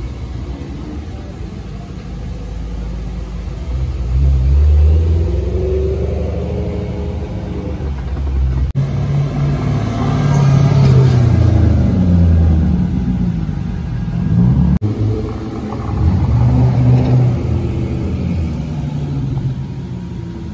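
Cars pulling away one after another, engines revving, each note rising then falling in pitch as the car passes close. The sound breaks off abruptly twice.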